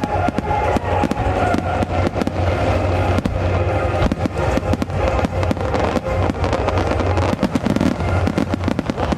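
Starmine fireworks barrage: many shells bursting in quick succession, a dense run of bangs and crackles, with music playing under it until near the end.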